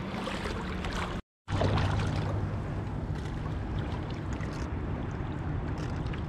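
Shallow seawater sloshing and splashing as someone wades and moves a long-handled scoop net through it, over a steady low hum. The sound drops out completely for a moment a little over a second in.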